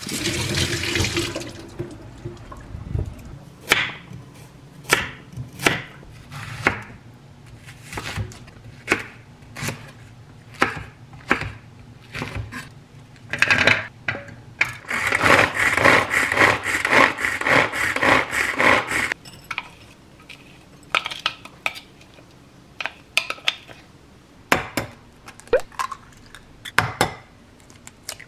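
Kitchen prep sounds. A rush of wind noise at the start, then separate clicks and knocks as vegetables are handled and dropped into a small manual vegetable chopper. Then about four seconds of dense rattling clatter as the chopper's blades spin through the vegetables, followed by more scattered clicks and taps.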